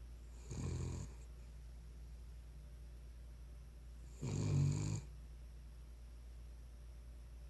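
Cavalier King Charles Spaniel snoring in its sleep: two short, low, buzzing snores about three and a half seconds apart, the second louder.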